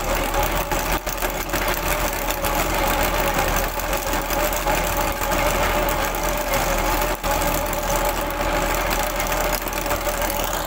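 Tractor diesel engine running steadily under load, driving a chain trencher that is cutting a trench through soil, with a steady whine over the engine.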